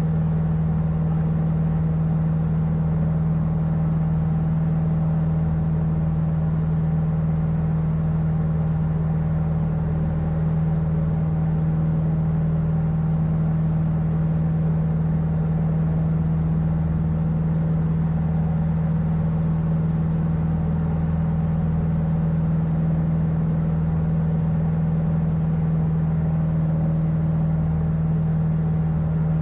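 Cessna 150's four-cylinder Continental O-200 engine and propeller running steadily in flight, heard from inside the cockpit as an even, unchanging drone with a strong low hum.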